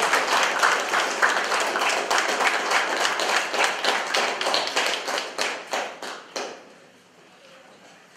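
Audience applauding, a dense clatter of many hands that thins out and dies away about six and a half seconds in, leaving a few last single claps.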